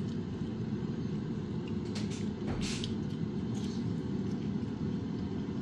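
Kumtel Digital Fastfryer air fryer's fan running with a steady low whir while it cooks a batch of fries, with a few faint crunches of a fry being chewed.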